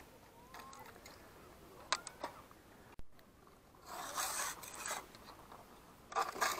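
Telescopic float-fishing rod being extended by hand: a couple of sharp clicks, then rasping scrapes as the rod sections slide out and lock, in two spells about four and six seconds in.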